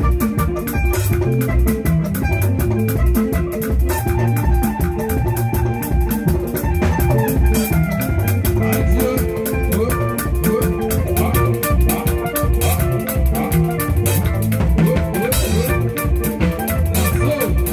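Live band music: a drum kit keeping a steady beat with cymbals, over keyboard and electric guitar parts.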